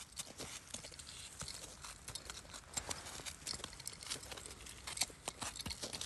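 Faint, irregular crunching and crackling of packed snow close to the microphone, a quick scatter of small clicks with no steady rhythm.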